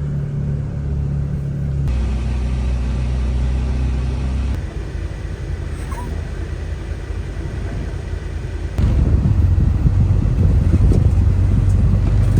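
A vehicle driving, with a steady low engine note that shifts pitch about two seconds in and again about four and a half seconds in. About nine seconds in, a louder, rougher low rumble takes over.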